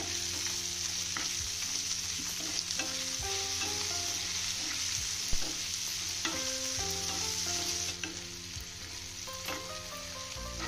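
Onion, capsicum, tomato and paneer sizzling in oil in a nonstick frying pan while a wooden spatula stirs and scrapes them, with scattered light taps of the spatula on the pan. The sizzle softens about eight seconds in.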